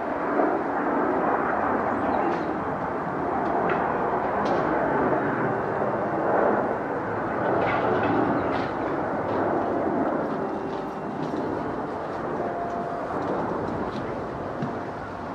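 Jet airliner's engines running, a steady rushing noise with a faint whine in it that swells in the first second and eases off a little near the end.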